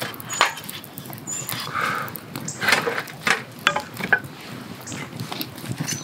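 Wood campfire burning over a bed of glowing embers, crackling with irregular sharp pops and snaps.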